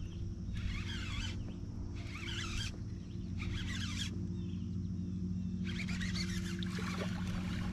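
A fishing reel being cranked in short bursts, about four spells of winding, as a bass is fought in through grass, over a steady low hum.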